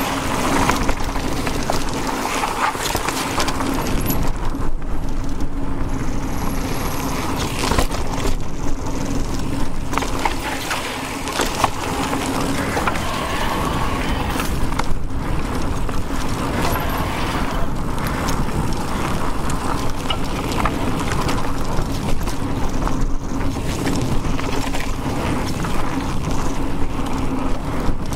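An electric mountain bike being ridden along a forest trail: steady rolling noise with frequent rattles and clicks from the bike over rough ground, and a steady low hum throughout.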